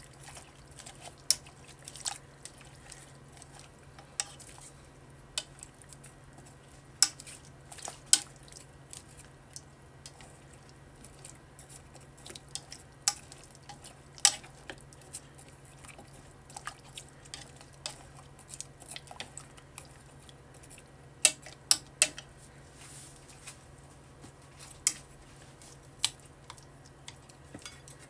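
Wooden chopsticks stirring sliced vegetables in water in a saucepan: irregular clicks and taps against the pot, a few of them louder, with small wet sloshing sounds.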